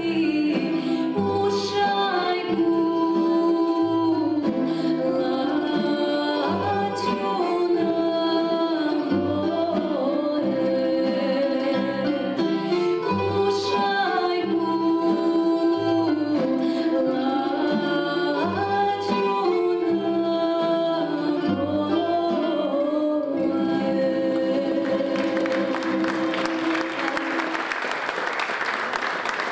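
Tamburica orchestra of plucked tamburicas and double bass accompanying a woman singing a song, the bass plucking a steady pulse about every second and a half. Near the end the song finishes and the audience breaks into applause.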